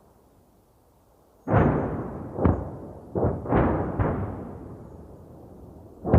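Distant 105 mm artillery shells exploding: after about a second and a half of fading rumble, four booms follow within about two seconds, each rolling away, and another boom starts right at the end.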